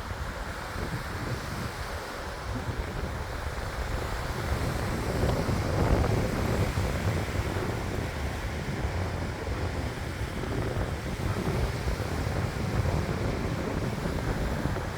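Wind buffeting the microphone: a gusty rumble that swells and eases, loudest about six seconds in.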